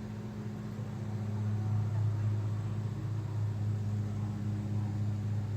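A steady low mechanical hum, swelling slightly in the middle, with faint wavering tones above it.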